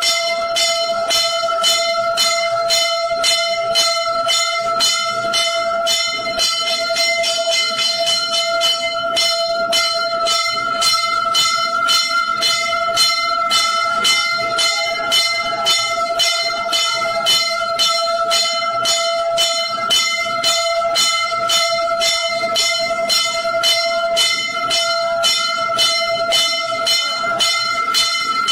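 Temple bells struck rapidly and without pause in a steady, even rhythm during aarti, over a continuous ringing tone.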